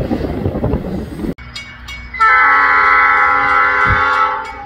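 Budd RDC rail diesel car running past with a low rumble, then, after a cut, a grade-crossing bell dinging rapidly as the RDC sounds one long horn chord of several tones, starting about two seconds in and lasting about two seconds.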